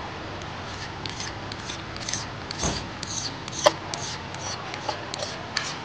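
Small flat carbide scraper scraping old gasket sealant off the engine's oil-pan sealing surface in short, irregular strokes, with one sharp click of the blade a little past halfway through.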